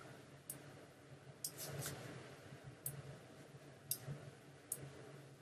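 Faint single computer mouse clicks, about five at irregular intervals, as points are placed and dragged in editing software, over a low steady room hum.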